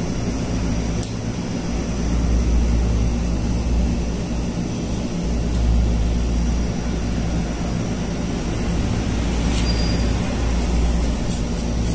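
Steady low background rumble, with a few light plastic-and-metal clicks as a spinning reel is handled and fitted into a fishing rod's reel seat, about a second in and again near the end.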